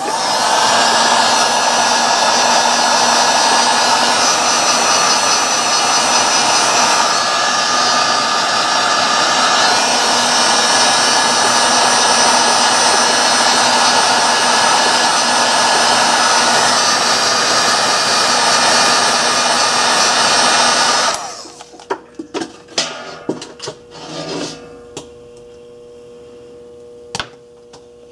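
Heat gun blowing steadily for about twenty seconds, then switched off abruptly; a few clicks and knocks of handling follow.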